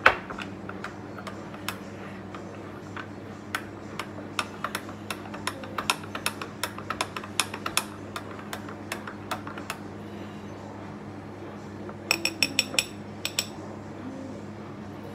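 Metal teaspoon stirring a drink in a drinking glass, clinking against the glass irregularly for about ten seconds. A quick run of sharper clinks follows near the end.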